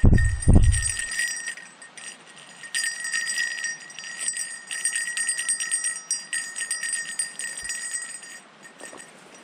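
A small bear bell worn by a walker jangling in quick runs of ringing with his steps through grass, loudest in the middle of the stretch and stopping shortly before the end. Two heavy low thumps at the very start.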